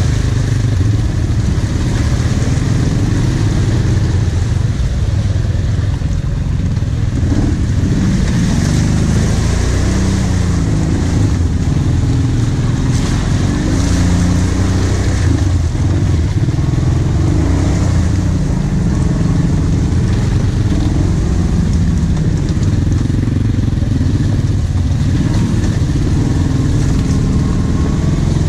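Quad (ATV) engine running at low speed, its revs rising and falling as it crawls along a muddy track.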